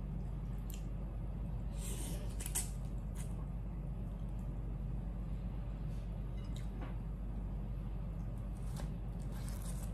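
Close-up mukbang eating sounds: a person eating noodles with chopsticks, with short slurps and wet mouth sounds scattered through, over a steady low hum.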